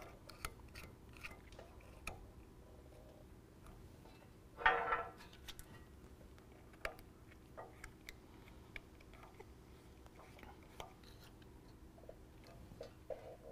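Faint scattered clicks and taps of hands pushing plastic retaining washers onto the threaded studs of bolt plates in a steel frame bracket. One brief louder sound comes about five seconds in.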